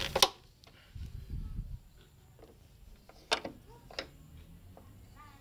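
Handling noise from a hood gas strut's end clip being worked by gloved hands. A loud sharp click comes just after the start, a few dull thuds about a second in, and two lighter clicks around three and four seconds in.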